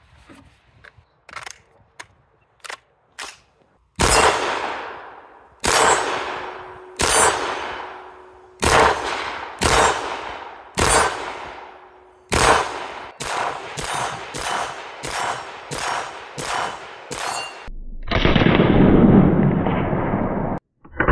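Suppressed HK SL8 (civilian G36) rifle firing .223 rounds semi-automatically, each shot a sharp crack with a long echoing tail: about seven shots a second or more apart, then about ten quicker ones at roughly two a second. A few light handling clicks come before the first shot, and a steady rushing noise follows the shooting for about three seconds near the end.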